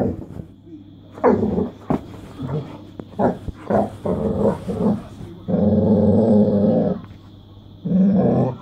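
Mastiff-cross dog growling and grumbling in several low vocal bursts, the longest lasting about a second and a half near the middle.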